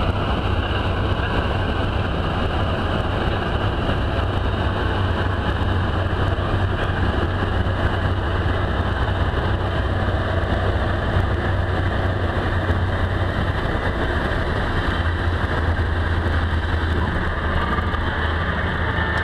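Cessna 172's piston engine and propeller running steadily, heard inside the cabin as a strong low drone with a rush of air over it, on final approach to landing.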